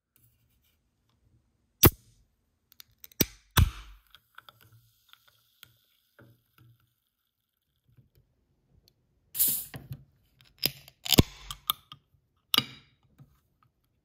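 Ring-pull tabs of aluminium drink cans being pulled open: sharp clicks and snaps as the tabs crack the lids, some followed by a short hiss as the seal breaks. A first few come about two to four seconds in, and a second cluster comes in the later part.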